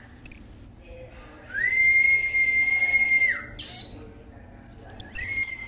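Common marmoset giving long whistling phee calls, three in a row. Each is a steady high whistle that drops in pitch at its end; the middle one is the longest, about two seconds.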